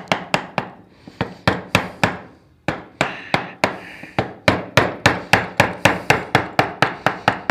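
Wood chisel driven into a board with a mallet in quick, light taps, about four a second, with two brief pauses: the chisel paring away wood as the carver works it down to a level.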